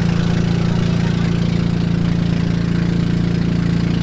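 Small river motorboat's engine running steadily while the boat cruises, an even drone that holds one pitch throughout.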